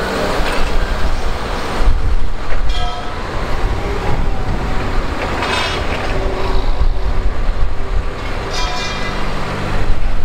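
Forklift and utility-vehicle engines running as they drive close by, with a constant low rumble. Three short, high-pitched beeps sound over it, a few seconds apart.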